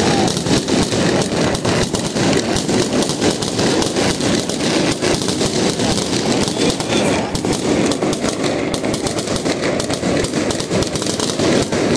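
Fireworks display: a loud, unbroken barrage of bangs and crackles from many shells bursting at once, many reports a second with no pause.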